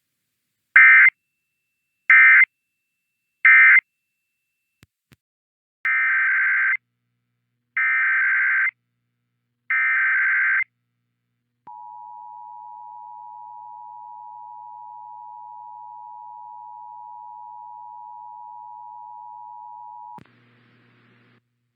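Emergency Alert System broadcast tones. First come three short SAME data bursts about a second apart, the end-of-message code closing the previous test. After two faint clicks come three longer SAME header bursts opening the next test, then the two-tone attention signal, a steady pair of tones held for about eight seconds.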